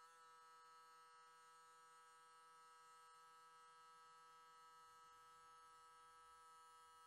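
A faint, steady whine made of many held tones sounding together.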